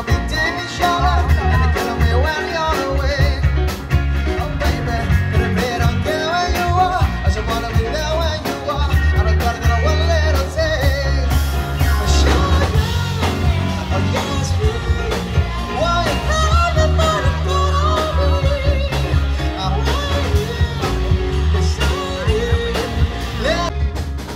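Live band playing a song, a man and a woman singing into microphones over electric guitars, keyboard and drums with a strong low beat.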